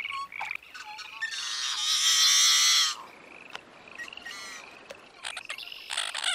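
Frogs calling in a marsh: short rising, pulsed trills. A louder, harsher call runs for about a second and a half, starting just over a second in.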